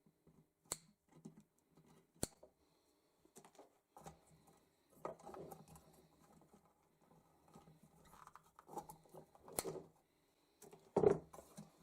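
Scattered sharp clicks, snips and light knocks of brass chandelier parts being handled and taken apart, with wires being cut; a louder clatter near the end.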